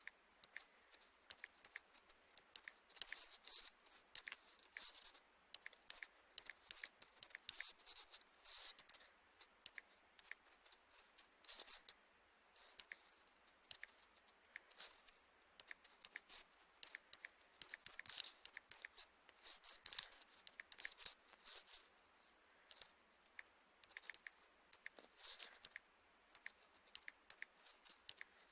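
Near silence with faint, irregular scratchy clicks and crackles, several a second in clusters.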